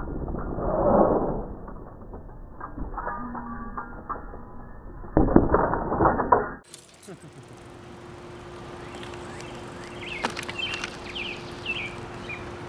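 Bicycle wheel spinning right at the microphone, with mechanical clicking about three seconds in and loud knocks and rattles a couple of seconds later. Then a steady outdoor background with a few bird chirps near the end.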